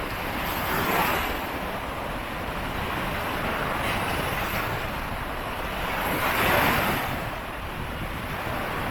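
Sea waves breaking and washing up the beach, swelling about a second in and more strongly around six and a half seconds, with wind buffeting the microphone.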